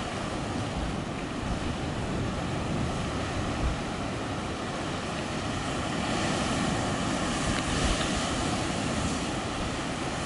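Ocean surf breaking against lava sea cliffs: a steady rushing wash of waves that grows a little louder about six seconds in, with wind buffeting the microphone.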